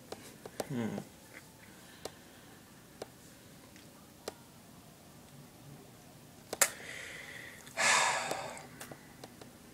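A person's breath close to the microphone: a brief low murmur about a second in, a few light clicks, then a heavy breathy sigh about two seconds before the end.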